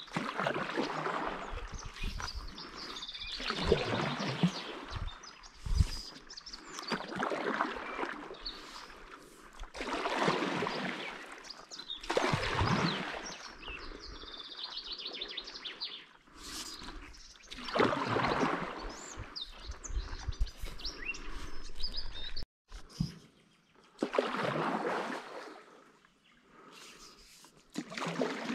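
Stand-up paddle strokes through river water, a splashing swish every two to three seconds, with birds calling and singing in between.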